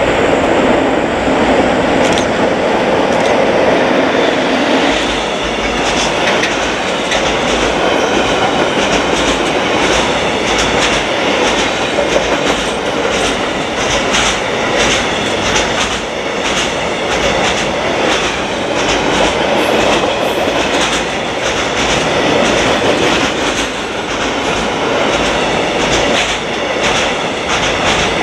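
Container freight train passing close by: its locomotive goes by in the first few seconds, then the wagons roll past with wheels clacking over the rail joints in a steady rhythm.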